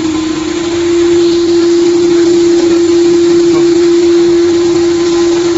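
Dishwasher tablet press machine running: a steady motor hum with one constant tone, a little louder from about a second in.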